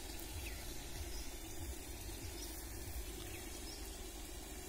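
Faint, steady outdoor background noise with a low rumble, and a few faint, brief bird chirps.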